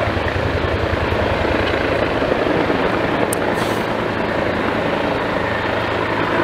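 Helicopter rotor and engine running steadily as the helicopter hovers, with a fast, even beat from the blades.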